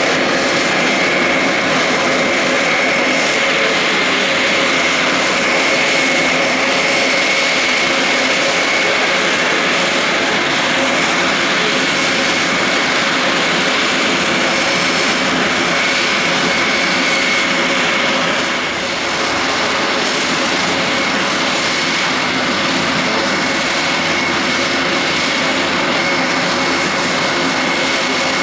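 Grob 109B motor glider's piston engine and propeller running steadily through landing rollout, with a constant high whine over the engine noise. Its level dips briefly about two-thirds of the way through.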